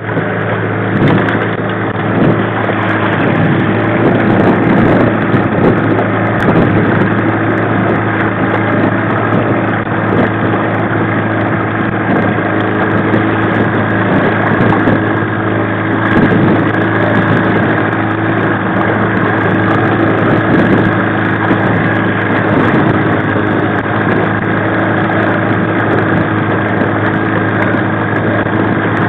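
1995 Mariner 15 hp two-stroke outboard running steadily at slow trolling speed, a constant even engine hum, with water washing along the aluminum hull.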